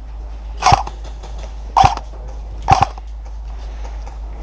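Airsoft rifle firing single shots: three sharp pops about a second apart.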